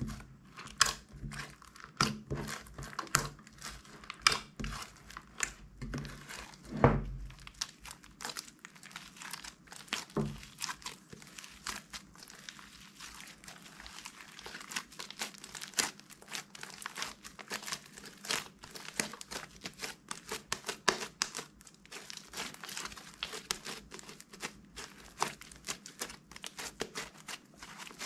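Red slime being kneaded, squeezed and stretched by hand, making rapid, irregular sticky clicks and crackles, with one louder thud about seven seconds in.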